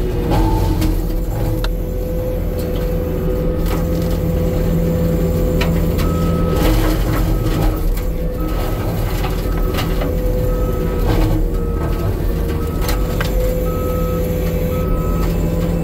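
Skid steer engine running under load as its mulcher attachment grinds up a pine tree, with sharp cracks of wood being shredded. From about six seconds in, a backup alarm beeps about once a second.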